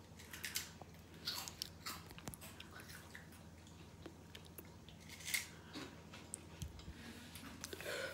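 Close-up chewing and crunching of Flaming Hot Monster Munch, a baked corn crisp, with short crisp crunches at irregular intervals.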